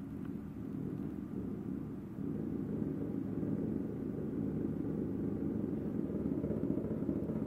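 Two rubber bouncy balls tied together with a rubber band, spinning and rolling on a hardwood floor: a steady low rolling rumble that gets louder about two seconds in.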